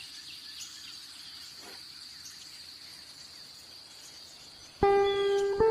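A steady high-pitched insect drone, cricket-like, with a few faint bird chirps over it. Music cuts in suddenly near the end, louder than the rest.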